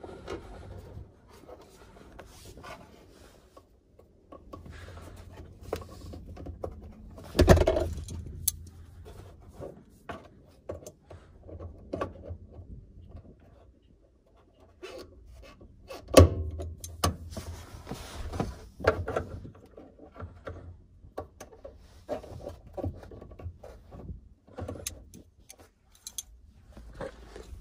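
Hands working a fuel pump's small hose and metal fittings back into place in the tank access hole: scattered clicks, light metallic rattles and rubbing, with two louder knocks, about seven and sixteen seconds in.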